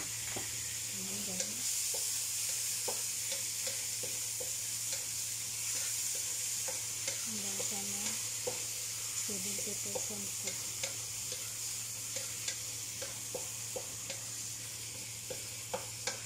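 Shrimp frying in hot oil in a wok, sizzling steadily, with a wooden spatula tapping and scraping against the wok as they are stirred.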